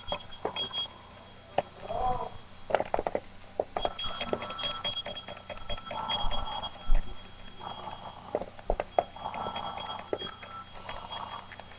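Electronic alarm clock beeping in rapid, high-pitched pulses. It sounds briefly at first, stops, then goes off again about four seconds in and keeps on, with a few scattered clicks.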